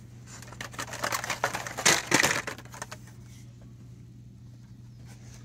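Carded plastic-blister Hot Wheels packs rustling and clattering as they are pulled off metal peg hooks and handled, loudest about two seconds in, then stopping.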